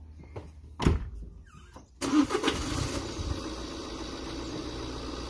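Small panel van's engine running, with a single loud knock about a second in; from about two seconds the engine sound suddenly grows louder and fuller as the van pulls forward.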